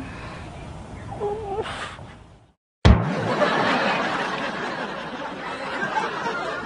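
Canned audience laughter that starts abruptly after a moment of silence, about three seconds in, and carries on. Before it there is a short hummed vocal sound.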